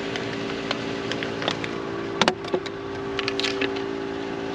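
Steady mechanical hum at a few fixed pitches, with scattered light clicks and a brief clatter of handled objects about two seconds in.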